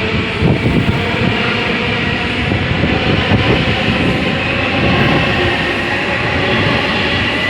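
A train passing close by: a loud, steady rumble of wheels on rails with a faint steady whine.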